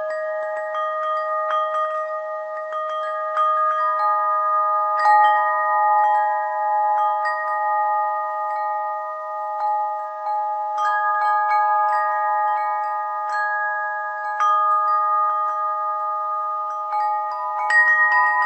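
Tuned bell chimes struck at irregular moments, a few notes at a time. Each note rings on and overlaps the others in a continuous wash, over a lower tone that keeps sounding.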